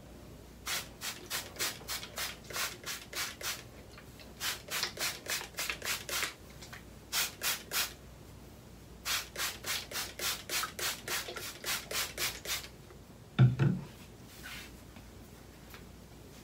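A hairbrush dragged through thick natural hair in quick scratchy strokes, about three a second, in three runs with short pauses between them. A single louder thump comes near the end.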